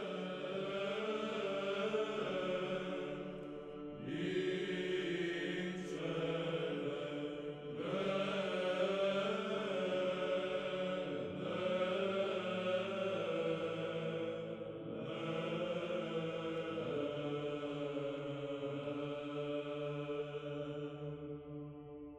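Slow Orthodox church chant sung by voices in long phrases over a steady low held note, fading near the end.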